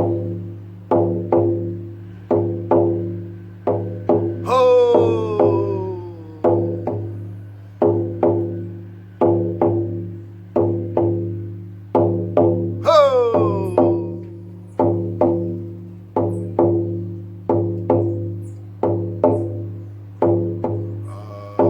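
Lakota healing frame drum struck in a slow steady beat, a little over one stroke a second, each stroke leaving a deep booming ring. Twice a higher ringing tone slides down in pitch over the beat.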